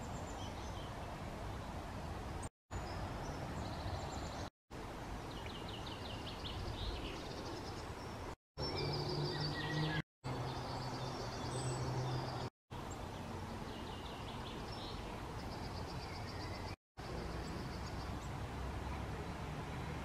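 Wild songbirds singing and calling in short high phrases and chirps over a steady low background rumble, with a low hum for a few seconds in the middle. The sound drops out briefly several times.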